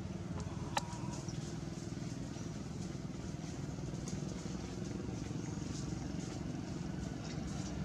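Steady low rumble of a motor vehicle's engine running, with one sharp click about a second in.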